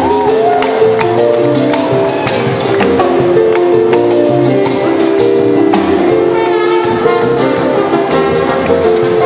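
Live Cuban salsa band playing: piano over congas and percussion, with trumpets and upright bass, a steady dance rhythm with held horn and piano notes.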